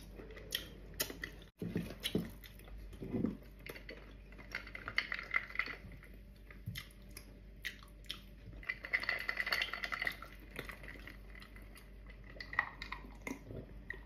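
Close-up mukbang eating sounds of beef-trotter stew: wet chewing, finger licking and lip smacks, with scattered light clinks of dishware.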